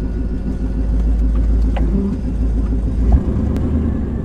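A 22-foot RV driving slowly on a gravel road, heard from inside the cab: a steady low engine and road rumble, with one short bump about three seconds in.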